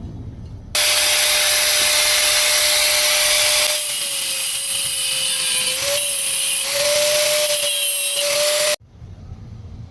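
Electric power tool running on metal: a steady whine over a loud hiss, wavering slightly in pitch. It starts sharply about a second in and stops abruptly near the end.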